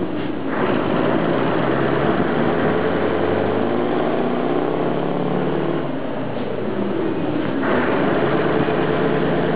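Scania T143e 470's 14-litre V8 diesel running through a straight, unsilenced vertical exhaust stack. It is being revved, swelling about half a second in and again near the end, with dark smoke puffing from the stack.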